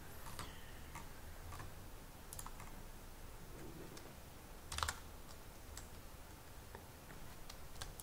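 Faint, scattered computer keyboard key presses: a handful of separate clicks, the loudest about five seconds in.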